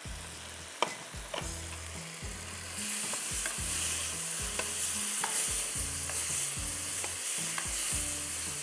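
Sliced peppers and beef sizzling in a wok over a high gas flame, stirred with a spatula that clinks and scrapes against the pan. The sizzling swells louder about three seconds in.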